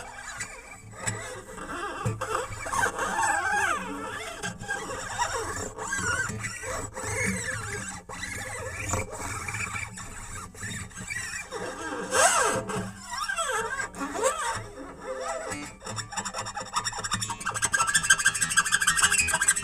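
Experimental music: squealing, wavering tones that glide up and down, broken again and again by abrupt cut-outs. Near the end a fast ticking pattern comes in with steady high tones.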